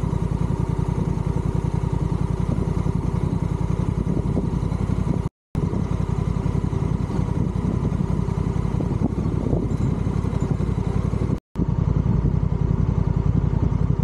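Motorcycle engine running steadily with an even, fast firing pulse. The sound breaks off twice into brief silence, about five and about eleven seconds in.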